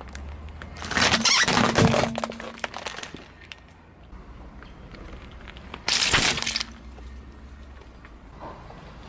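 A brittle object crunching and cracking as it is crushed, in two bursts: a long crackling one about a second in, trailing off into scattered snaps, and a shorter crunch around six seconds in. A faint low rumble runs underneath.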